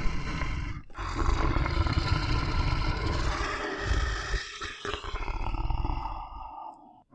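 A lion roaring: a short call, then one long roar of about six seconds.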